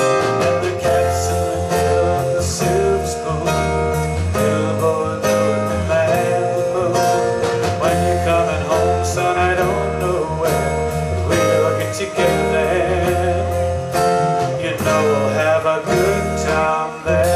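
Song music: acoustic guitar strummed with a steady beat.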